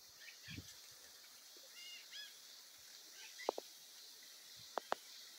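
Faint farm-field ambience: a steady high insect hiss with several short bird calls, and a few sharp clicks near the end.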